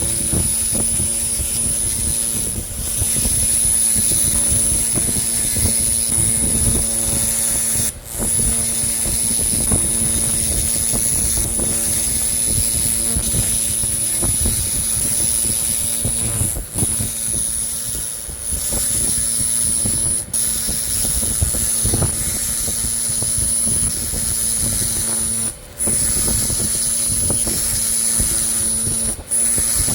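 A 300-watt pulsed laser cleaner ablating rust from a bell: a steady high-pitched whine over a hiss and a low hum. It cuts out briefly several times.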